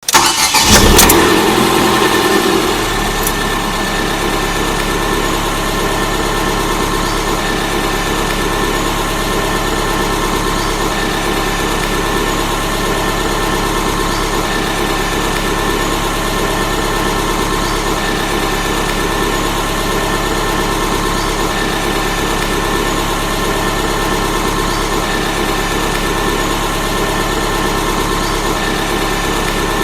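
Car engine starting: a brief crank, then it catches, flares up loudly about a second in, and settles into a steady idle within a few seconds.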